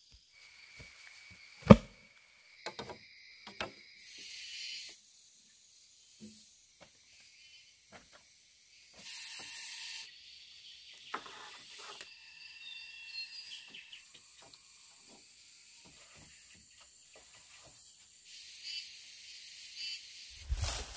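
Forest ambience of insects trilling and buzzing in steady high tones, with a few short bursts of high hiss. A few sharp knocks sound over it, the loudest about two seconds in.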